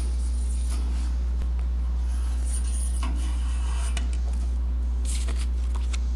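Steady low electrical hum, with faint scattered clicks and light rubbing sounds over it.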